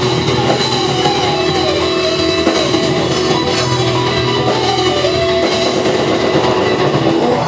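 Heavy metal band playing: electric guitars with a melodic line over a drum kit, loud and steady throughout.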